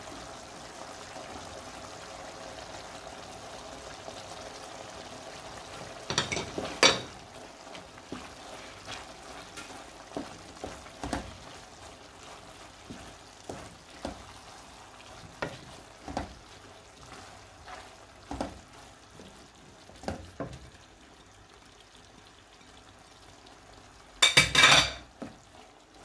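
Pot of meat and potato filling bubbling on the stove, then a clatter about six seconds in and a spoon stirring the pot, knocking against it roughly once a second. Another loud clatter comes near the end.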